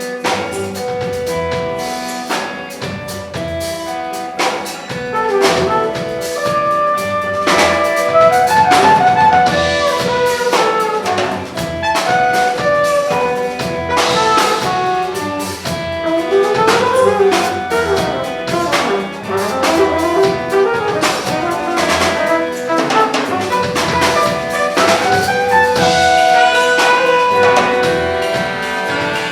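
A brass band (fanfare) playing a lively, jazzy piece: several horns weaving melodic lines over frequent drum hits.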